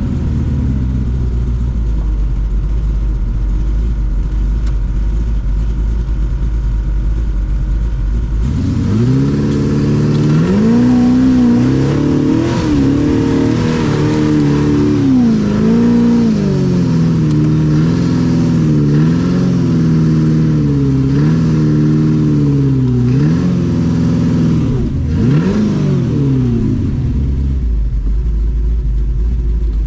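Engine of an FJ40-based off-road buggy, heard from on board. It idles with a low rumble for about eight seconds, then its revs rise and fall repeatedly, and it settles back to idle near the end.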